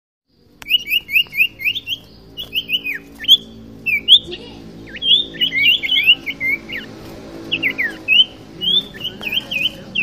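Common iora (cipoh, sirtu) calling hard in fighting song: rapid strings of short, sharp whistled chirps, sliding up or down, several a second with brief pauses, starting about half a second in.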